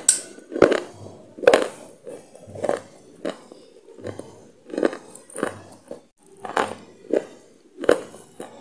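A person chewing a crunchy mouthful: regular sharp crunching chews, about one and a half a second.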